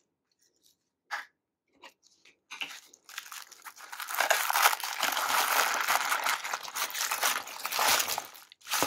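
White wrapping of a LOL Surprise Fluffy Pets ball crinkling and tearing as it is peeled off by hand: a few brief rustles at first, then continuous crinkling from about four seconds in until shortly before the end.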